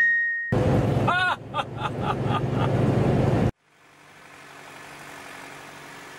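Sound effects over closing title cards. A brief ringing chime, then about three seconds of loud, noisy rumble with a few quick pitched chirps, cutting off suddenly. Then a faint, steady drone that swells and fades.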